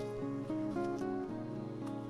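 Background music: a gently plucked acoustic guitar melody.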